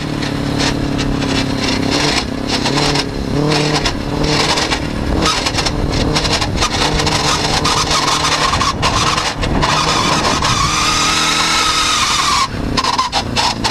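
Suzuki RF600 motorcycle engine in an off-road buggy, driven over a rough, wet grass track, its revs rising and falling as the throttle is worked. Jolts and ride noise from the bumpy ground are mixed in.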